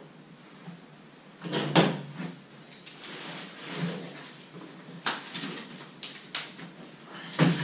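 Handling noise from a large cardboard box being picked up off the floor and carried to a plastic folding table, with scuffing and three sharp knocks spread through it.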